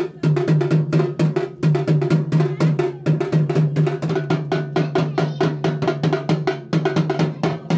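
Dhol, a double-headed barrel drum, played with sticks in a fast, steady rhythm of rapid strokes.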